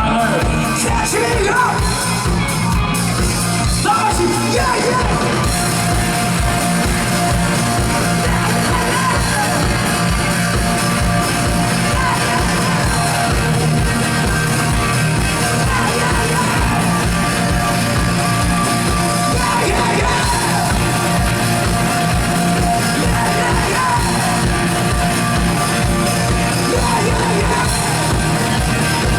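Live rock band playing loudly, with a steady drum beat under a sung lead vocal.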